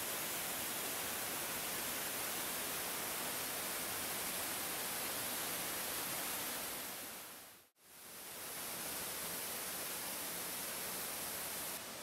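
Steady rush of a waterfall pouring into a pool. It cuts out for an instant nearly eight seconds in and fades back up.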